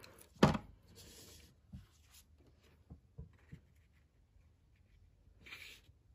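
Paper and card stock being handled on a wooden tabletop: a sharp tap about half a second in, then a short soft rustle, a few light taps, and another brief rustle near the end, as a glued gingham paper layer is set on a card base and pressed down.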